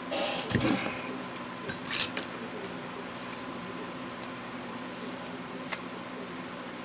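Small hand tools being picked up and set down on a workbench: a brief clatter in the first second and a sharp metallic clink about two seconds in, then a faint tick, over a steady low hum.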